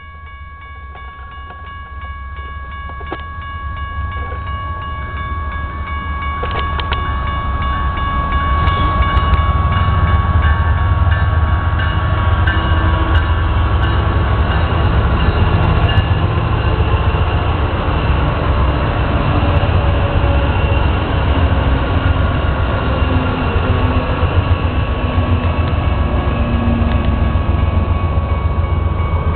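Diesel locomotives of a freight train approaching and passing close by, their rumble growing louder over the first eight or nine seconds, then holding steady as the freight cars roll past. A steady high whine runs throughout.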